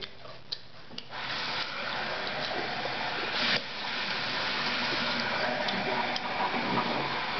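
Water running from a tap into a sink, coming on about a second in and running steadily. Before it, a few light clicks of a spoon against a cereal bowl.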